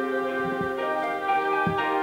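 Slow instrumental music of long, overlapping held notes, with new notes entering about a second in.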